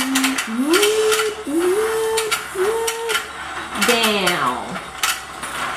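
Wordless vocalizing: a voice slides up into three short held notes, then falls in a long downward glide about four seconds in. Under it the battery-powered toy fishing game's rotating pond mechanism keeps up an irregular plastic clicking.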